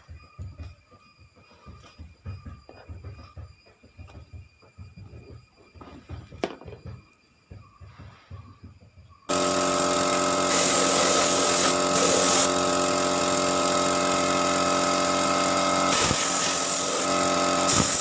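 Faint background for about nine seconds, then an air compressor starts abruptly and runs loudly and steadily, with a few bursts of hissing air over its hum.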